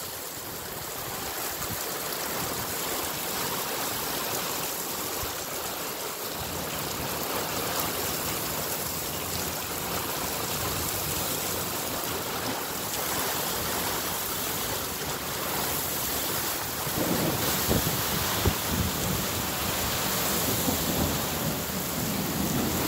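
Steady rain during a thunderstorm, with louder low rumbling in the last few seconds.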